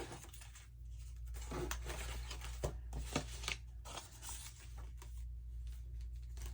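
Paper and card being handled and shuffled by hand, rustling and scraping with a few light taps and clicks, over a steady low hum.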